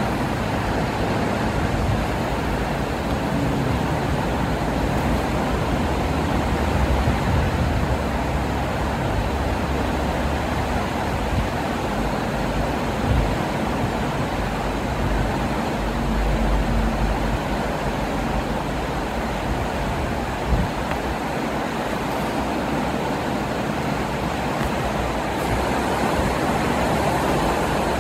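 Swollen, fast-flowing river water rushing under a concrete bridge: a loud, steady noise, with a couple of brief knocks about halfway through and again about two-thirds of the way in.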